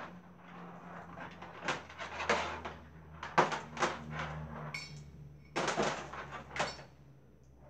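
Handling noise from working on a small desk fan's power cord: wires rustling and the plastic fan and cord knocking and scraping on a table, in a series of short, irregular knocks.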